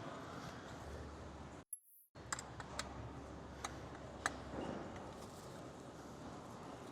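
Faint, scattered small metal clicks and taps from hand tools working the parts of a chainsaw muffler, over a low steady hum. The sound drops out briefly just before two seconds in.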